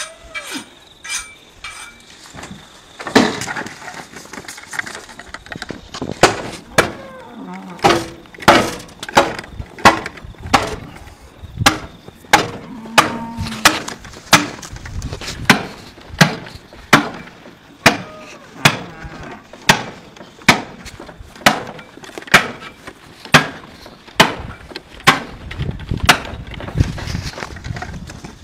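Heavy cleaver chopping through the backbone of a hanging beef carcass to split it into two sides, each blow cracking through bone. A few scattered knocks come first, then a long steady run of sharp blows at about two a second.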